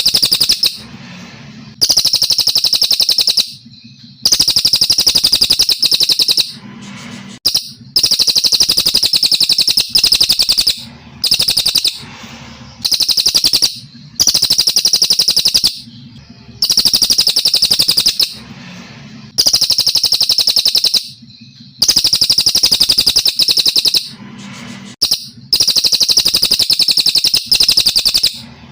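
Brown cililin, a Kalimantan songbird, singing in long, loud phrases of a fast, high trill, each lasting a second and a half to two seconds. The phrases repeat every few seconds with short pauses between them.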